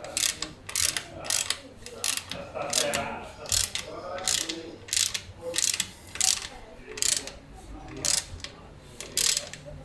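Ratchet wrench clicking through short strokes: sharp, uneven clicks about two a second.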